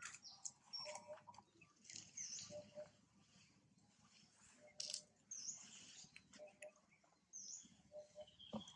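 Faint outdoor ambience: a few brief high chirps, with scattered small ticks and rustles.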